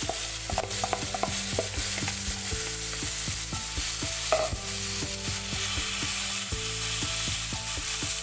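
Marinated chicken pieces sizzling in hot desi ghee in a pan, stirred and turned with a spatula that scrapes and knocks against the pan many times.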